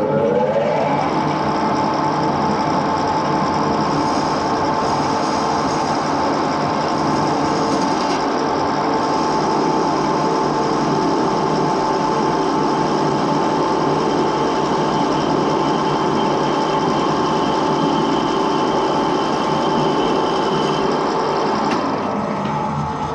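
Edgwick lathe spinning up with its four-jaw chuck, then running at a steady speed with a constant whine from its drive and gearing, and slowing down near the end.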